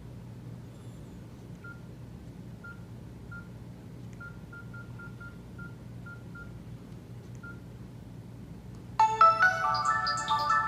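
Nokia E90 mobile phone giving about a dozen short keypad beeps at uneven intervals as its keys are pressed, over a faint low hum. About nine seconds in, a loud polyphonic ringtone melody starts playing from the phone's speaker.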